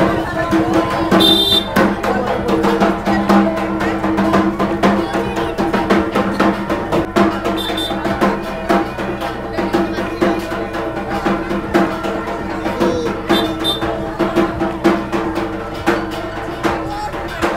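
Music with a busy, steady drum beat over long held notes.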